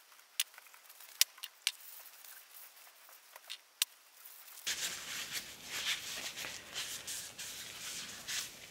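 Gloved hands handling small blued steel sleeves: a few light clicks and taps, then from about halfway a cloth rubbing oil over a sleeve, a steady scratchy rustle.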